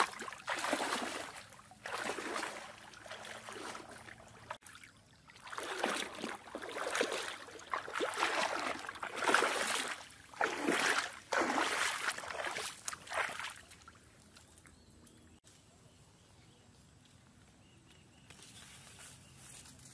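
Water sloshing and splashing in a run of strokes about a second apart, which stop about two-thirds of the way through.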